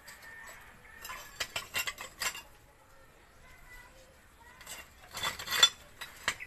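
Ceramic tile pieces clinking and scraping against each other and the concrete as they are handled, in two clusters of sharp clicks, the second one louder.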